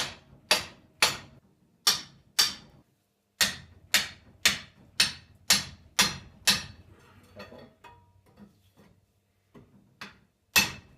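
Hammer blows on the finned cylinder barrel of a Citroën 2CV flat-twin engine, trying to knock the barrel off pistons that are seized in it: two runs of sharp ringing strikes about two a second, then a few light knocks and one last hard blow near the end.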